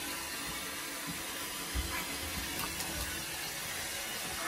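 Steady hiss of running water into a bathtub, with a few faint low thuds and splashes as a wet Alaskan malamute is scrubbed in the bath water.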